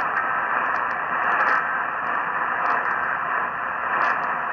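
AM radio receiver hissing with static while tuned to a weak, distant station. A steady noise is squeezed into the narrow AM audio band, with scattered crackles over it.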